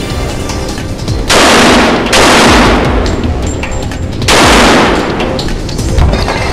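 Three loud pistol shots from a Glock 22 in .40 S&W, the first two close together and the third about two seconds later, over background music.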